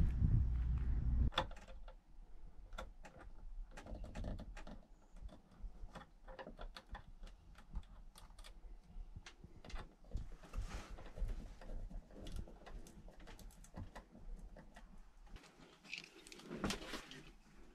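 Brief wind rumble on the microphone, then irregular small clicks and taps of hard plastic parts being handled and fitted as a bathroom extractor fan is installed in the wall.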